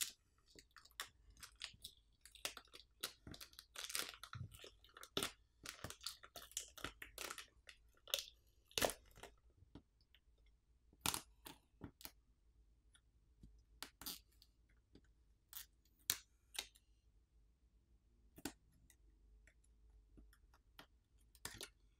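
Faint crackling and scattered sharp clicks as the phone's battery adhesive pull pouch and flex cables are peeled back from the frame by hand, busiest in the first half and thinning out later.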